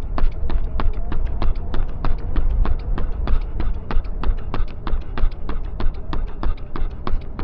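Running footsteps of the camera-carrying runner at a tempo pace: shoes striking the ground in an even rhythm of about three steps a second. A low steady rumble runs underneath.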